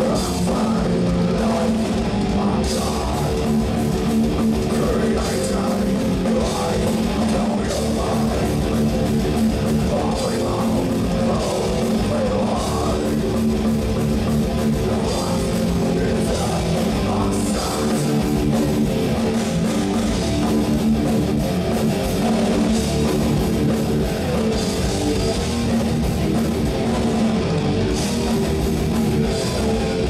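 Live heavy metal band playing at full volume: distorted electric guitars and bass holding low chords over a drum kit, steady throughout.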